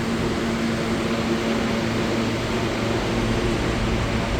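An R143 subway train stands idle with its air conditioning and electrical equipment running: a steady hum with a few constant tones, and no change in pitch.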